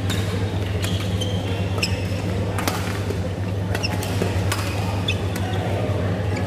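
Badminton play in a large hall: sharp racket hits on shuttlecocks and brief shoe squeaks on the court floor, scattered irregularly, from several courts at once. Underneath runs a steady low hum.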